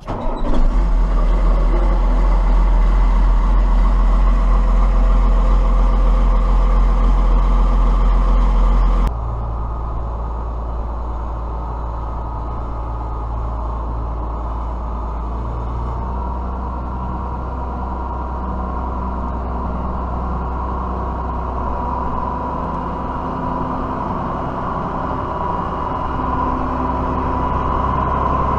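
Tractor engine running steadily with heavy low rumble. About nine seconds in it cuts suddenly to a somewhat quieter, steady engine sound.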